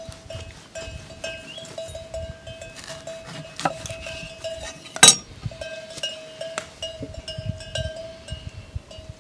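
A lemon handled on a wooden cutting board and cut with a kitchen knife, with a sharp knock of the blade on the board about five seconds in and a softer click shortly before it. A steady ringing tone sounds on and off underneath.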